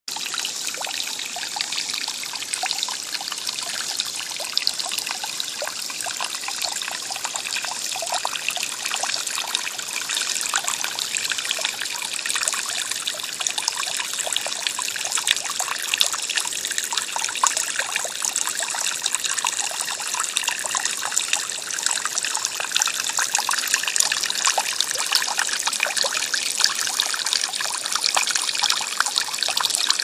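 Garden bird-bath fountain running: a steady stream of water spouting from a cherub figure's jug and splashing into the basin below.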